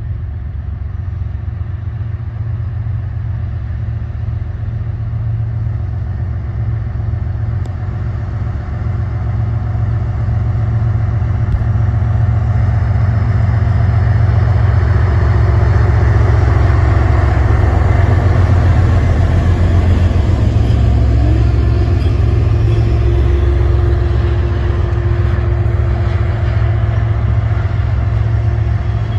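BNSF GE diesel locomotive running under power as it leads a train of tank cars past, a steady deep engine drone that swells to its loudest about halfway through as the locomotive goes by, then eases slightly as the cars follow.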